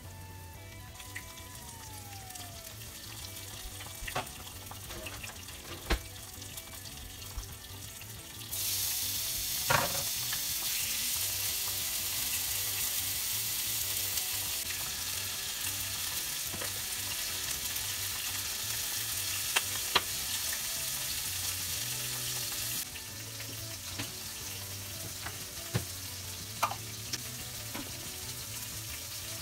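Oil sizzling as floured shrimp shallow-fry in a small pot and chicken pieces fry in a pan. The sizzling turns loud about eight seconds in and drops back to a lower sizzle after about 23 seconds, with light clicks of chopsticks against the pans.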